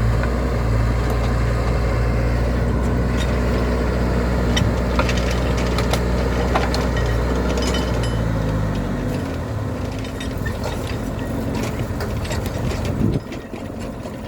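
Case 580 Super L backhoe's diesel engine running steadily, then slowing about eight seconds in as its deep hum drops away. Scattered clicks follow, and there is a single knock near the end.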